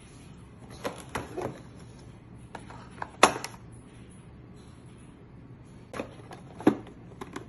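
Handling noise from a tiered cardboard art set box: a few scattered taps, clicks and knocks as its tiers are swung shut and small items are set down on a wooden table, the loudest knock about three seconds in.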